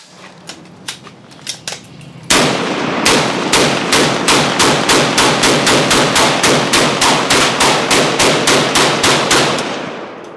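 Draco AK-pattern pistol fired in a long rapid string, about four shots a second for roughly seven seconds, after a few faint clicks in the first two seconds.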